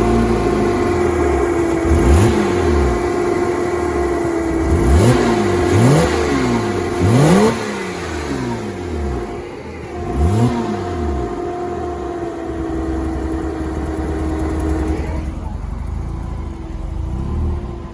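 A car engine running and being revved several times, each rev rising and falling in pitch, over a steady high hum.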